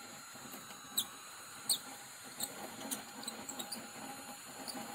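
Hand-cranked drill in a drill stand boring into a wooden board: a steady gear whir and grind of the bit in the wood, with short, sharp high squeaks now and then.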